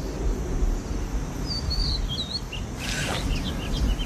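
Outdoor ambience: a steady low rumble of wind-like noise with a bird chirping a few quick calls about one and a half seconds in. A short burst of noise comes about three seconds in.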